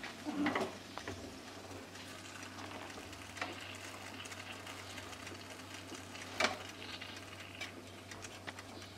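Hot linguiça sausages sizzling faintly in a pulled-out air fryer basket as a fork turns them. The fork makes light clicks and a few sharper ticks against the sausages and the basket grate.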